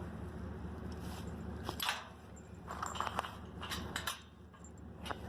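Metal treestand parts and bolts being handled during assembly: a few scattered clinks, knocks and scrapes over low background noise.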